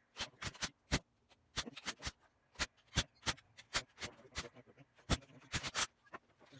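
An irregular run of about twenty sharp clicks and knocks, some in quick clusters, from hand work on a rotary engine being assembled.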